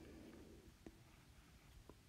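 Near silence, with two faint ticks about a second apart from a stylus tip tapping the glass of a tablet screen while drawing.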